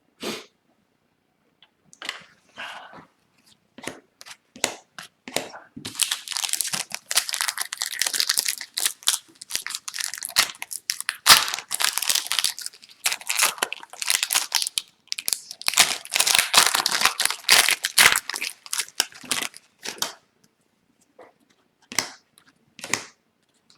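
A trading-card pack wrapper being torn open and crinkled in the hands, a dense crackling that runs for several seconds and pauses briefly, with light ticks before it and a single sharp knock partway through.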